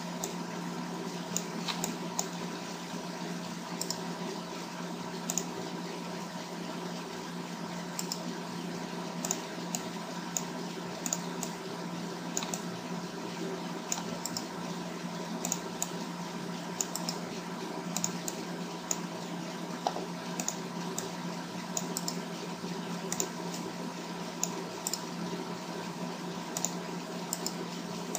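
Irregular clicks and taps of a computer keyboard and mouse, over a steady low hum.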